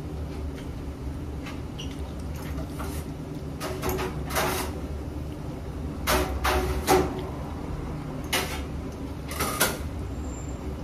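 A metal fork scraping and clinking against a ceramic plate as spaghetti is twirled and eaten, in a few short bursts, the loudest cluster about six to seven seconds in, over a steady low machine hum.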